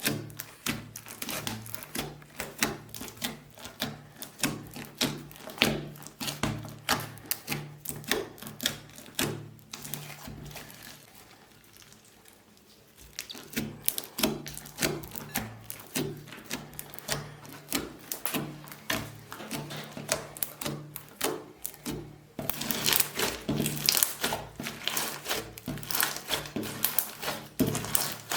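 Slime being squished and pressed by hand, a rapid run of small wet clicks and pops, with light background music under it. The clicking fades almost away for a couple of seconds in the middle, then returns denser and louder near the end.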